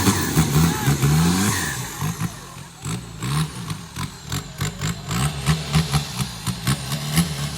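Off-road 4x4 competition vehicle's engine revving in repeated short bursts, about two a second, with sharp knocks and clatter mixed in through the middle and later part.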